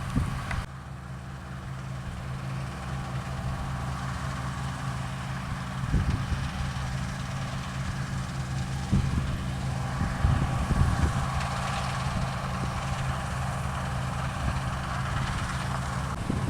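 Diesel engine of a combine harvester or tractor running steadily at a constant speed, with intermittent wind buffeting the microphone.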